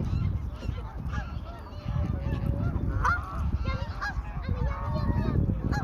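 Ducks giving repeated short, nasal honking calls that waver in pitch, thickest through the second half, over a steady low rumble.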